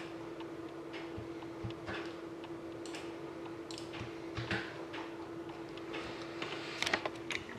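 Scattered computer mouse clicks, with a quick run of keyboard taps near the end, over a steady electrical hum.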